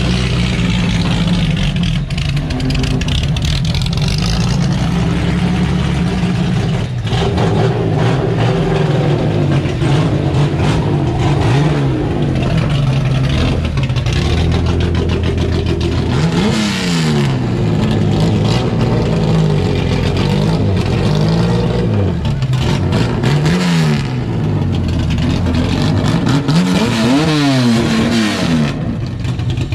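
Chevrolet Opala six-cylinder engine running loud through its exhaust, idling steadily at first. From about halfway through it is revved several times in short blips, each rising and dropping back to idle.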